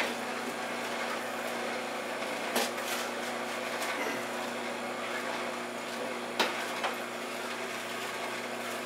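A knife cuts pineapple on a plastic cutting board, with about four sharp knocks of the blade striking the board. Underneath is the steady hum of an Omega VRT350 masticating slow juicer running.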